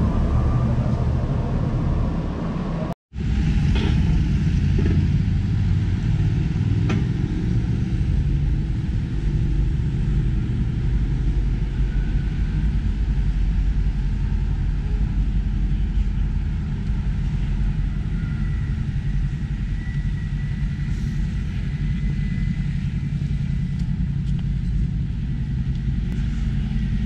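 Steady low rumble of city street noise with road traffic, broken by a sudden brief drop to silence about three seconds in.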